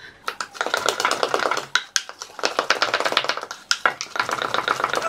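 Wooden spoon beating cake batter by hand in a ceramic mixing bowl, clacking against the bowl in rapid strokes several times a second, with a couple of brief pauses.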